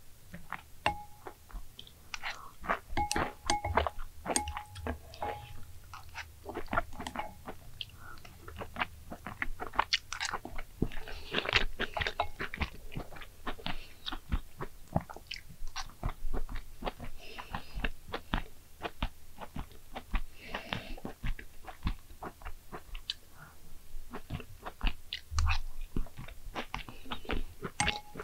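A person eating egg jajangmyeon noodles close to the microphone: chewing and biting, with many small clicks of the mouth. There are a few short ringing clinks in the first few seconds.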